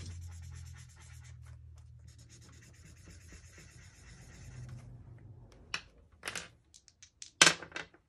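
Marker pen scribbling across numbers on a paper sheet for about five seconds, then a few sharp clicks of two dice being rolled onto the paper and table, the loudest about seven and a half seconds in.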